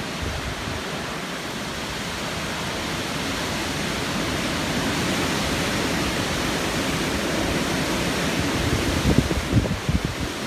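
Strong wind blowing as a steady rushing noise that builds slightly, with gusts buffeting the microphone in low, irregular rumbles near the end.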